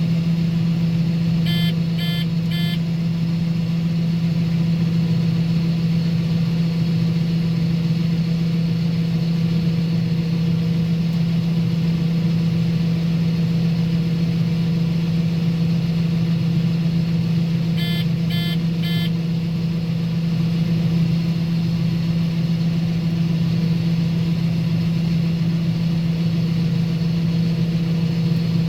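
Combine harvester running at a steady drone, with a group of three short electronic beeps about two seconds in and again about eighteen seconds in.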